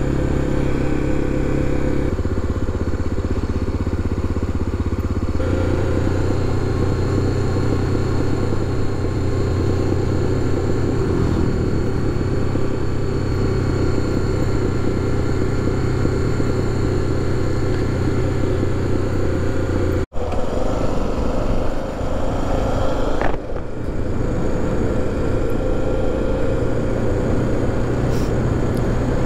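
BMW F700GS parallel-twin motorcycle engine running steadily under way, with wind noise over it. The engine note shifts pitch about two and five seconds in. About two-thirds through the sound cuts abruptly to a rougher engine-and-wind sound.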